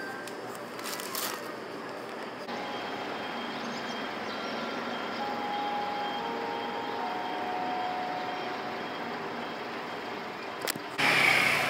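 A chime melody over steady street noise: a few long, steady notes at different pitches ring out one after another from about four to eight seconds in. Near the end a loud rush of noise cuts in suddenly.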